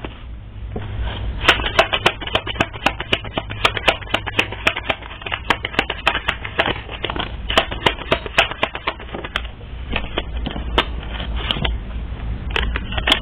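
Cards being shuffled and handled by hand: a dense, irregular run of crisp clicks and flicks, typical of a tarot deck being shuffled.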